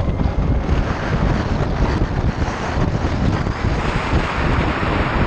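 Wind buffeting the microphone of a motorcycle riding at road speed: a steady, deep rushing noise with no clear engine or motor note above it.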